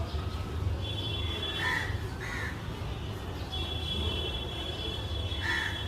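Crows cawing three times in short calls, over a steady low rumble and a high, steady thin tone.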